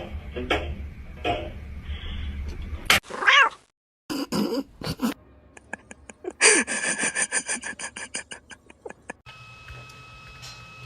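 Domestic cat meowing, with one loud drawn-out meow that rises and falls about three seconds in, followed later by a quick run of short repeated sounds.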